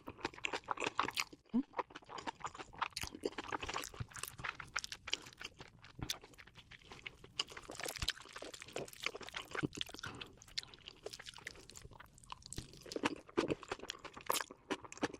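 A person chewing crunchy food close to the microphone, with dense, irregular crunching throughout.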